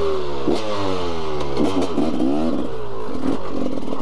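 KTM EXC enduro motorcycle engine being ridden: the revs fall over the first second and a half, then rise and fall again, with a few sharp knocks from the bike.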